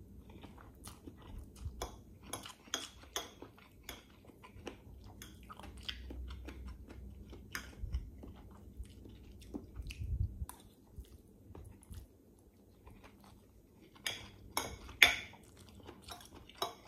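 Close-up mouth sounds of a person eating instant pancit canton noodles: wet chewing, smacking and slurping as the strands are sucked in, with many small sharp clicks, and a few louder clicks together near the end.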